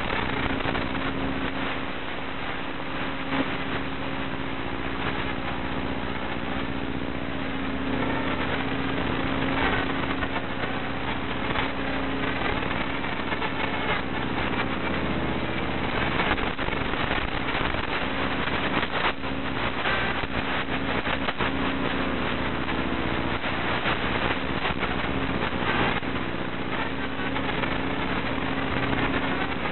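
Steady static hiss with a low, constant hum and faint wavering tones: electrical noise on the audio track of an FPV video recording, with no drone or room sound.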